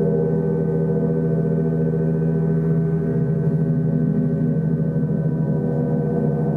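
Several large gongs played with mallets, their many overlapping tones ringing together in a steady, sustained wash with no single sharp strike standing out; from about three seconds in the sound takes on a slight fluttering swell.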